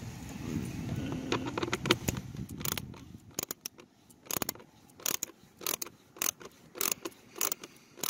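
Hand screwdriver with a Torx bit turning a screw into a car door's handle carrier, clicking about twice a second from about three seconds in. A steady low hum fills the first couple of seconds.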